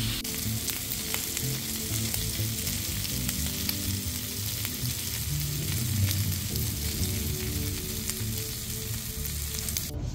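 Pork belly pieces sizzling and spattering on a hot cast-iron grill pan, with many small pops through a steady hiss, while metal tongs turn them. The sizzle cuts off near the end.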